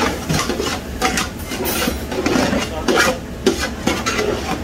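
Spatula scraping and stirring a thick vegetable-and-spice mixture against the sides and bottom of a large metal stockpot as it sautés, in repeated strokes about two a second.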